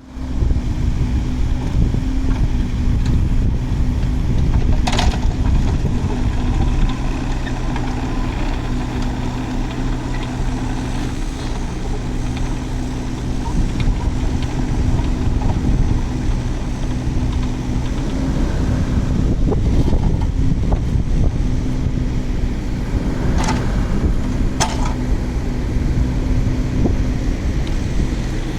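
Yanmar VIO20-4 mini excavator's diesel engine running steadily. A short sharp sound cuts across it about five seconds in, and two more come close together near the end.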